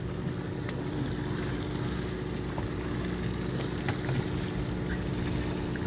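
Fishing boat's engine running steadily at idle: an even hum with a few faint clicks over it.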